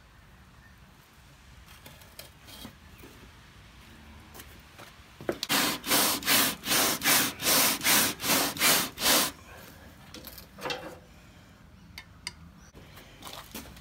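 Rhythmic scraping: a steel screwdriver shaft raked back and forth over a barbecue's wire grill grate and charcoal briquettes, about three strokes a second for about four seconds in the middle, with a few lighter scrapes and clicks near the end.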